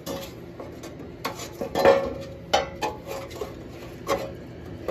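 Metal heater core being fitted into its heater housing by hand: a few light clinks and knocks with scraping between them as it is shifted into place.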